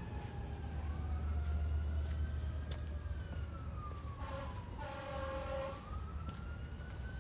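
An emergency-vehicle siren wailing, its pitch slowly rising and falling, with two wails overlapping and a steadier held tone about four seconds in. A steady low rumble runs underneath.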